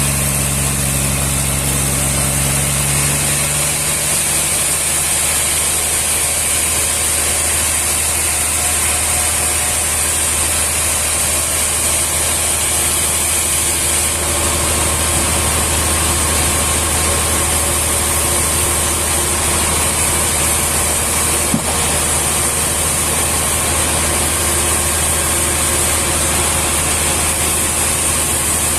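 An engine running steadily at an even speed, with a constant high hiss over its low hum; the hum shifts in pitch a few seconds in, and a single sharp click sounds about two-thirds of the way through.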